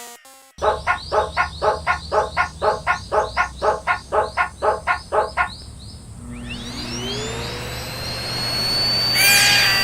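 Level crossing warning bell ringing, a pitched ding repeating about three times a second for about five seconds, then stopping. After it comes a whine that rises in pitch and levels off, with a quick burst of falling high sweeps near the end.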